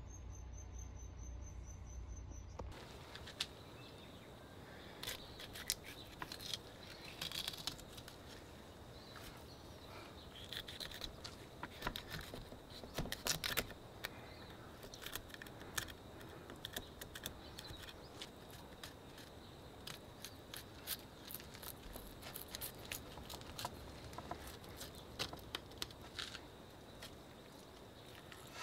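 Fillet knife cutting along an albacore tuna on a plastic cutting board: scattered clicks, scrapes and taps of the blade through skin and bone and against the board, starting a few seconds in and busiest around the middle.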